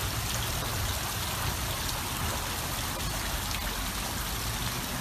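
Water splashing steadily down a wall waterfall feature.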